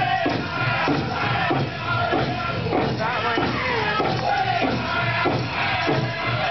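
Powwow drum group singing a men's chicken dance song, with voices held high over a steady beat on a big drum at about two beats a second.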